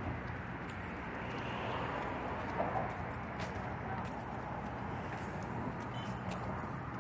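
Steady traffic noise from cars crossing the bridge: a continuous rush of tyres and engines with a low hum, and a few faint clicks.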